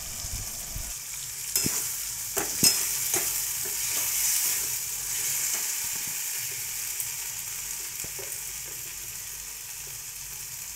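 Diced potatoes and mustard paste sizzling in oil in a metal kadai, stirred with a metal spatula that clicks against the pan a few times in the first few seconds.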